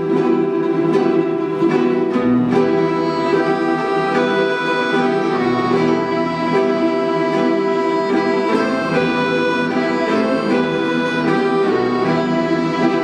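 An orchestra of Russian folk instruments playing a flowing melodic passage: bayans hold sustained chords under quick plucked and tremolo strings from domras and balalaikas.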